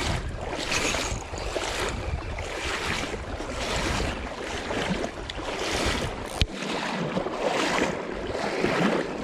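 Wind buffeting the microphone over a rushing creek, a rough, surging noise with heavy low rumble. A single sharp click about six and a half seconds in, after which the low rumble eases.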